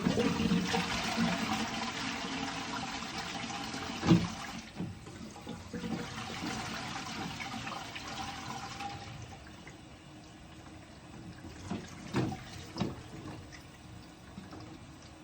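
Toilet flushing: a sudden rush of water that runs for about nine seconds, then eases to the quieter hiss of the cistern refilling. A few knocks sound along the way, the loudest about four seconds in.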